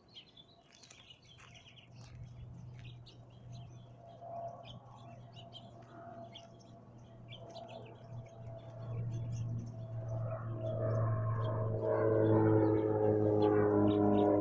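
Small birds chirping, with a low steady hum underneath. In the second half a swelling set of steady sustained tones builds until it is louder than the birds.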